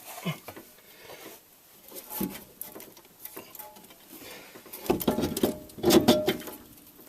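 Metal parts knocking and scraping as the bottom of a shock strut is forced into its mounting slot on the steering knuckle: scattered light clicks, then a louder run of ringing metallic clanks about five seconds in.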